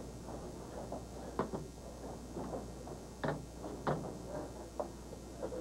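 Refrigerator door dispenser in use, with a mug held to it: several short clicks and knocks scattered over a steady low hiss.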